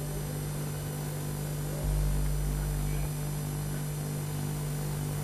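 Steady electrical mains hum with a faint hiss; a deeper low rumble joins about two seconds in and lasts about a second.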